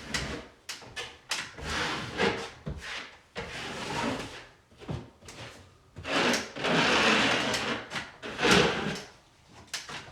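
Strokes of a 6-inch drywall knife scraping along mesh tape and setting compound on a ceiling seam, a series of irregular sweeps with a few sharp clicks of the blade.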